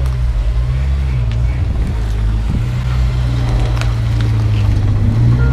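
A car engine running at low revs, a steady low hum, with people talking faintly.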